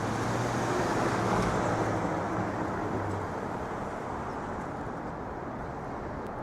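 City street traffic: a steady wash of road noise, with a vehicle engine's low hum that stops about three seconds in.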